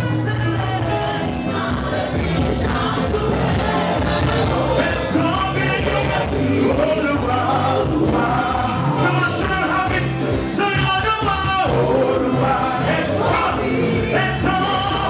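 Live gospel praise-and-worship music: singing over a band with bass and a steady beat. The sound is slightly crackly because it was recorded through the camera's own microphone.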